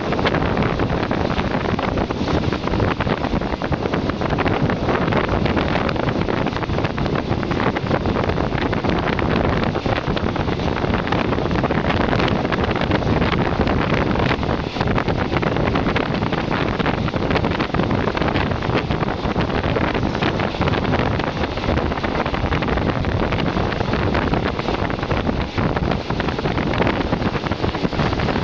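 Wind rushing over the microphone from the window of a moving passenger train, with the train's running noise underneath; a steady loud roar with no breaks.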